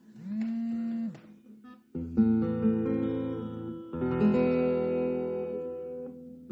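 Acoustic guitar music: after a brief gliding note in the first second, two strummed chords about two seconds apart, each left ringing.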